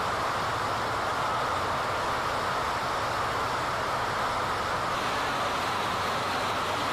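Steady drone of a tugboat under way, a low engine hum beneath an even rush of wind and water.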